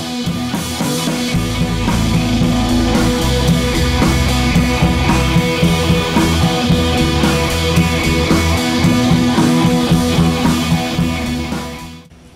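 Rock music with guitar and drums, fading out near the end.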